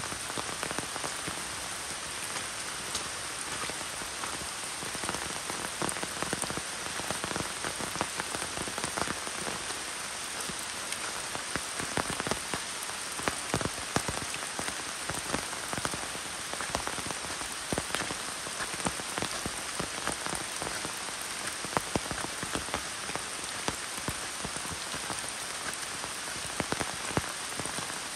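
Steady rain falling on the leaves and gravel trail of a deciduous woodland, with many separate drops ticking sharply and irregularly close by.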